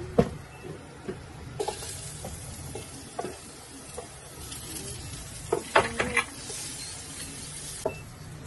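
Onion going into hot oil with ginger and garlic in a pot, sizzling steadily as it is stirred with a wooden spoon, and a few knocks of the spoon against the pot. The sizzle starts suddenly about a second and a half in and stops shortly before the end.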